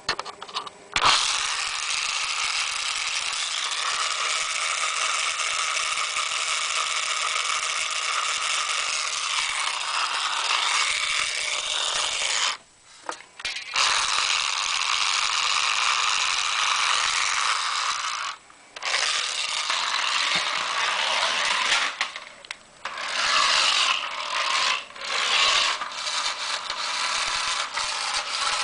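Toy BMW Z1 racer car's small motor and plastic gears running with a rattling, ratcheting whir. It stops briefly several times and starts again.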